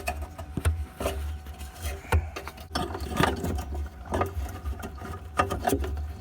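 Plastic rubbing, scraping and clicking as an H11 headlight bulb is worked back into the socket at the back of the headlight assembly, with a string of irregular small knocks over a steady low rumble.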